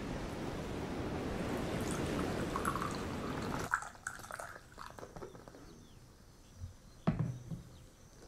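Steady rush of sea surf that cuts off abruptly about three and a half seconds in. Then coffee is poured from a vacuum flask into a cup, and a single sharp knock near the end as the flask is set down on the table.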